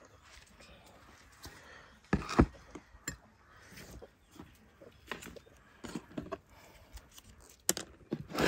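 A few scattered knocks and clicks of handling, with the loudest pair about two seconds in and another cluster near the end.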